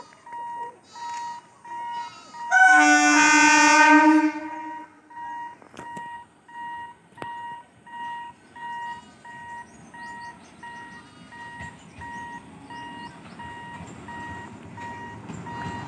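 A level-crossing warning beeper sounds a steady rhythm of short beeps. About two and a half seconds in, an approaching electric multiple unit train gives one long horn blast of about two seconds, the loudest sound. The train's rumble builds towards the end.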